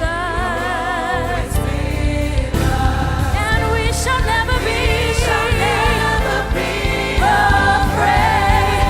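Live gospel worship music: a choir or group of singers holding long notes with vibrato over a bass-heavy band.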